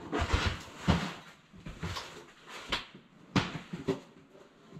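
Rummaging through a packed storage box: rustling of fabric and packing, with several light knocks and thumps as items are handled and set down.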